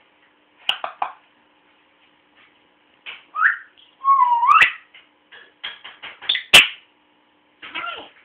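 A pet animal vocalising: short chirps and rising, whistle-like calls, the longest gliding upward a little past four seconds in. A sharp click sounds about six and a half seconds in.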